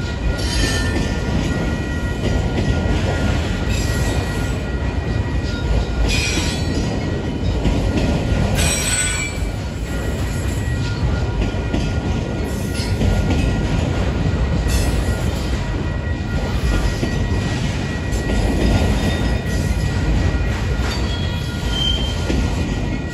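Freight train of autorack cars rolling past, a steady heavy rumble of wheels on rail. Brief high wheel squeals break through a few times.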